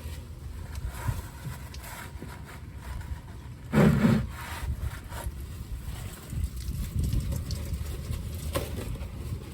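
Low rumbling handling and wind noise on the microphone, with a short louder thump about four seconds in and a faint click near the end.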